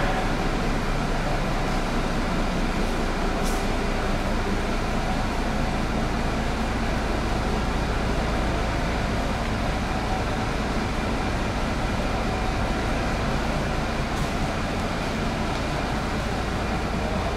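Diesel bus engine idling steadily: an even low rumble with a constant hum and no rise or fall in pitch.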